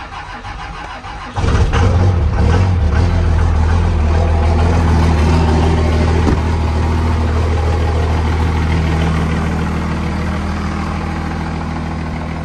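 Second-generation Dodge Ram's 24-valve 5.9 L Cummins inline-six turbodiesel starting up, catching suddenly about a second and a half in, then running at a steady idle that eases slightly over the following seconds.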